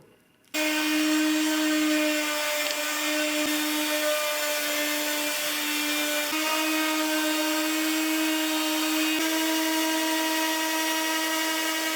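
Electric sander switched on about half a second in, running steadily with a hum and the hiss of 80-grit sandpaper on a wooden countertop, then switched off at the very end, its pitch falling as it winds down.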